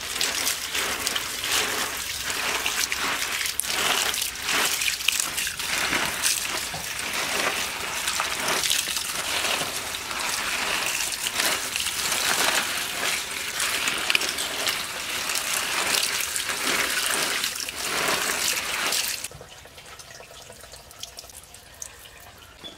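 Running water splashing onto spinach leaves in a bamboo basket as a hand swishes and turns the leaves to rinse them. The water stops abruptly about nineteen seconds in.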